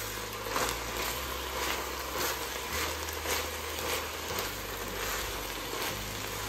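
Wooden spoon stirring minced beef and tomato pasta sauce over a low sizzle in an enamelled cast-iron casserole, each stroke scraping through the mince about twice a second.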